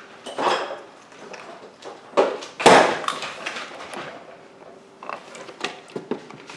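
Handling noises of a carton being picked up, held up and set back down on a countertop: a few short knocks and rustles, the loudest about two and a half seconds in, over a faint steady hum.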